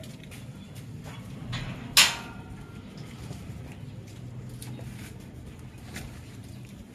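A single sharp knock about two seconds in, over a low steady rumble and a few faint clicks.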